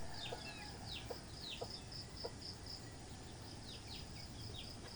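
Birds calling: many short high chirps that sweep downward, a high note repeated about three or four times a second for a stretch in the middle, and scattered short low notes.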